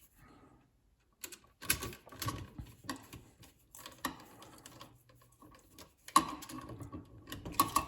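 Irregular small clicks and scrapes of hands working a GFCI receptacle, fitting and tightening the white neutral wire on its silver terminal.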